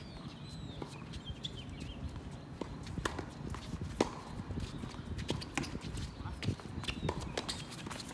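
A doubles rally in a racket sport: sharp, irregular racket hits and ball or shuttle impacts, a few a second, over footfalls on the court, with a few short squeaks near the start.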